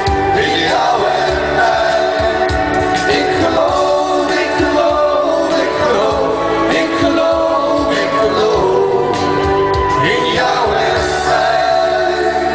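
A song with singing voices, a man's voice among several, holding long notes over an accompaniment.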